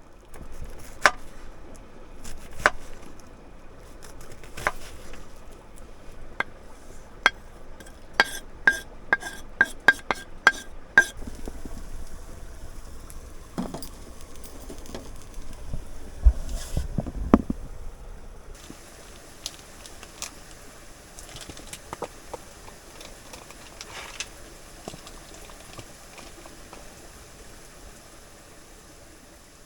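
Brats and onions frying in a pan on a wood stove, with a utensil clinking and scraping against the pan: a quick run of sharp taps in the first ten seconds or so, a couple of dull knocks around the middle, then steadier sizzling with occasional clicks.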